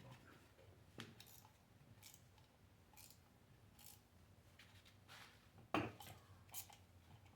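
Faint, scattered clicks and scrapes of objects being handled, with one sharper knock nearly six seconds in.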